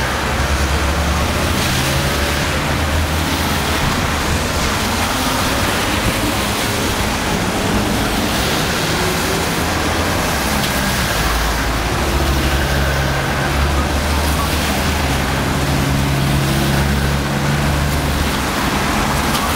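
A convoy of Ford Transit and VW T4 police vans driving past one after another on a wet road: steady hiss of tyres on the wet asphalt with the low hum of the engines rising and falling as each van passes.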